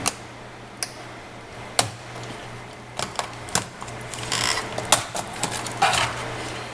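Flathead screwdriver prying up an HP 2000 laptop keyboard: sharp plastic clicks and snaps as the keyboard's retaining clips release one after another, with a couple of short scraping sounds of the blade and keyboard edge against the laptop's case.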